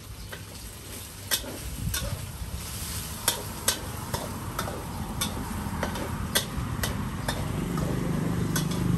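Metal spatula clanking and scraping against a wok in irregular strikes as egg and rice are stir-fried, over the sizzle of hot oil. A low rumble swells near the end.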